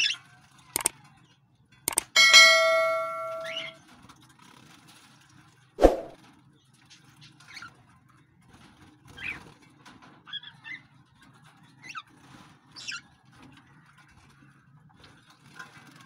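Small aviary birds giving short, scattered chirps and calls, with a few sharp clicks and knocks. About two seconds in, a sharp metallic clang rings on for about a second and a half before dying away.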